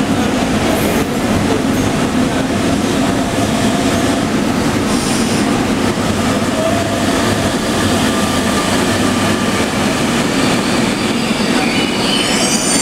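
MetrôRio subway train moving alongside the platform: a loud, steady rumble of wheels on rail. Near the end, a whine rises in pitch as the electric motors speed up.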